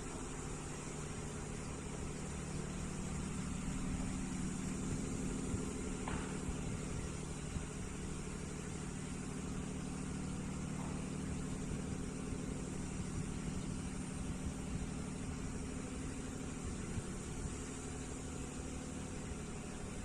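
A steady engine-like drone with a low hum of several fixed tones that does not change, and a faint short chirp about six seconds in.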